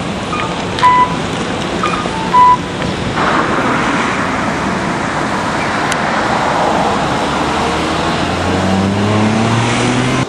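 City street traffic. Two short electronic beeps from a pedestrian crossing signal in the first few seconds, then steady traffic noise, and near the end a vehicle's engine speeding up with a rising pitch.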